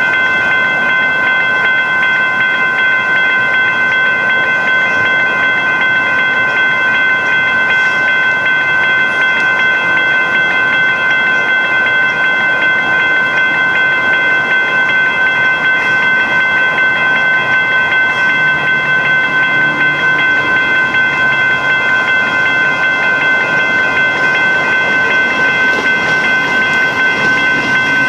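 Railroad crossing warning bell ringing steadily and without a break, with several high ringing tones over a low rumble.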